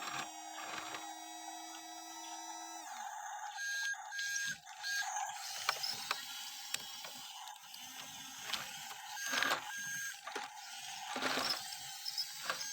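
Small electric motors and plastic gears of a remote-control toy construction vehicle. A steady whine for about the first three seconds, then intermittent clicking and rattling.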